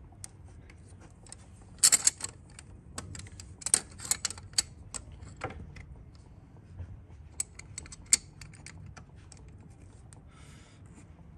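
Irregular metallic clicks and ticks of pliers gripping and twisting a 1.9 TDI pump-injector to work it loose from the cylinder head. The sharpest clicks come about two seconds in and again around four seconds, with a brief scraping rustle near the end.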